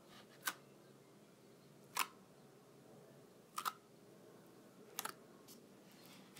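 Fingers poking and pressing into thick white slime in a plastic tub, each poke giving a short, sharp pop. There are four pops about a second and a half apart, the last two doubled.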